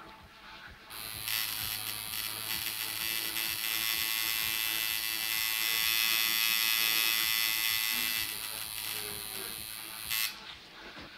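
Tattoo machine buzzing steadily while its needle works ink into the skin of the hand, starting about a second in and cutting off shortly before the end.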